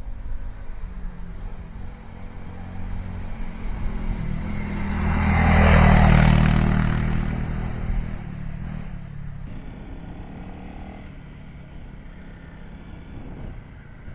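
Honda CRF 300L's single-cylinder engine running steadily while being ridden. A passing vehicle swells up loudly and fades away around the middle.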